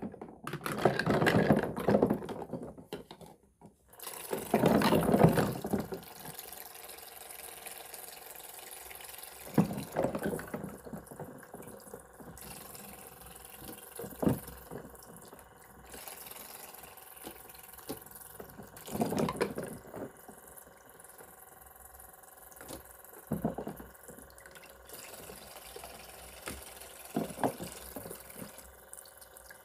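Plastic clatter for the first few seconds, then a toy kitchen sink playset's small electric pump humming steadily as its faucet trickles water into the basin. Every few seconds there are splashes and clunks as toy fruit pieces are rinsed under the stream.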